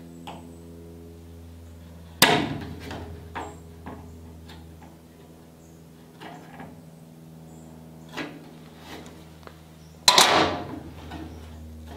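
Two loud knocks, about two seconds in and again near the end, with lighter clicks and taps between, over a steady low hum.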